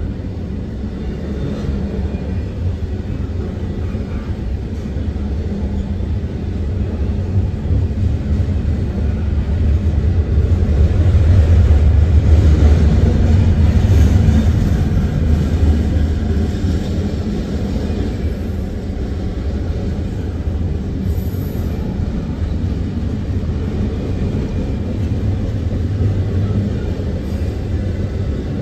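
Norfolk Southern double-stack intermodal freight train rolling past, a steady low rumble of container well cars on the rails that swells about ten seconds in and eases off again.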